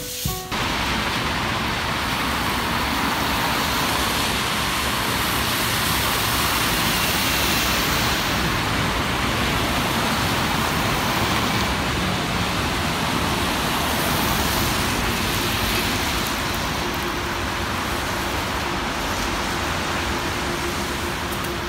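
Steady wet-road street traffic noise: tyre hiss from passing cars and a tram. A faint steady hum joins in during the last few seconds.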